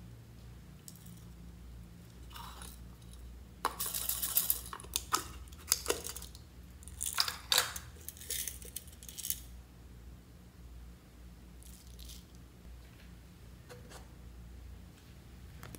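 Small craft bits shaken out of a plastic container into a glass bowl of clear slime, rattling in several quick bursts from about four to nine seconds in, then only a few faint clicks.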